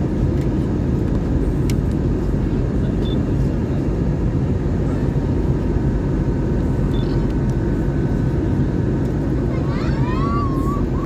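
Steady cabin noise inside an Airbus A321neo, from its Pratt & Whitney PW1100G geared turbofan engines and the airflow, heard from a seat near the front. Near the end there is a short gliding voice-like sound.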